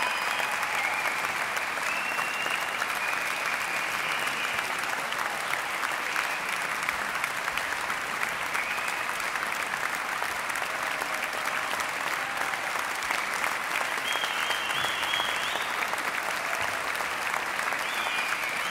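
Audience applauding steadily in a concert hall, a dense even patter of many hands clapping.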